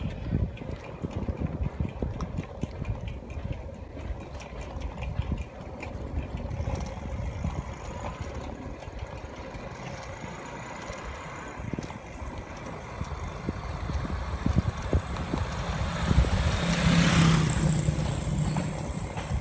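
Motor vehicle engine running on a road over a steady low rumble, with one vehicle passing, growing louder and fading about 16 to 18 seconds in.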